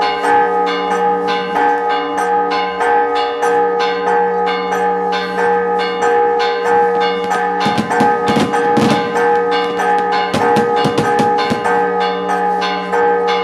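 Church bells rung in a fast, continuous peal of about four strikes a second, their tones ringing on under each stroke. A little past the middle come two bursts of denser, clashing strikes.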